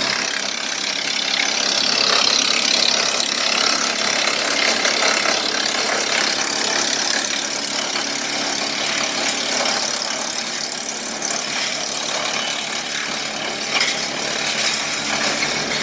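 Woodmaxx WM-8H wood chipper, driven by a Kubota tractor, chipping up a long branch: a continuous loud, noisy rush of cutting and shredding, with a brief louder moment near the end.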